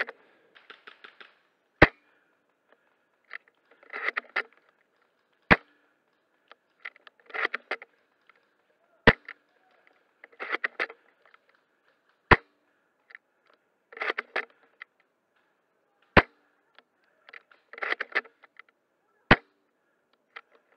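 Novritsch SSG24 spring-powered bolt-action airsoft sniper rifle firing six sharp shots, about one every three and a half seconds, with a short rattle of the bolt being cycled to cock the spring before each shot.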